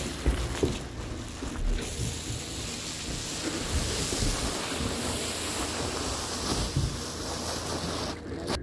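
Wind rushing over the microphone in a steady hiss, with a few dull knocks from people moving about on the plywood roof deck; the sound cuts off suddenly near the end.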